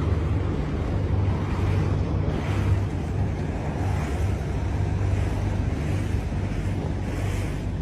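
Boat motor running steadily with a constant low hum, under a hiss of wind and water noise.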